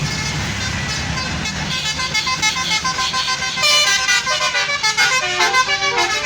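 A bus engine rumbles and fades about two seconds in. At the same time a Basuri multi-tone telolet horn starts playing a quick melody of short stepping notes, loudest over the last couple of seconds.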